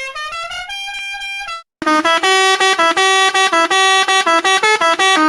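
Musical car horn playing a tune: a few held notes stepping upward, a brief break, then a fast run of short honked notes ending on a held note.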